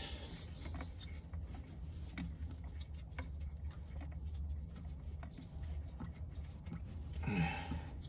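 Faint scattered clicks and rubbing as a hand works the old spin-on fuel filter loose on a skid steer's engine, over a low steady hum. A brief voice-like sound, the loudest thing here, comes near the end.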